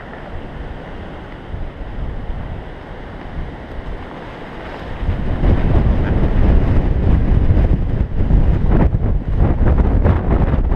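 Mountain bike rolling over snow, its tyres crunching, with wind buffeting the camera's microphone. A deep rumble comes in about five seconds in and stays loud.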